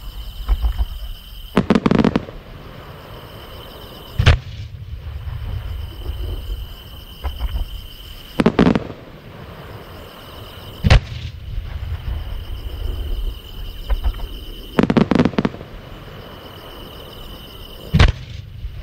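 Large 10-gou (about 30 cm) aerial firework shells going off one after another. Three times, a rattling cluster of reports is followed about two seconds later by a single sharp boom, the booms roughly six and a half seconds apart, over a low rumble.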